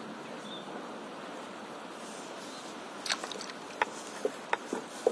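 Steady wind and water noise. From about three seconds in comes a run of sharp clicks and light knocks as a fishing rod and reel are handled on a paddleboard.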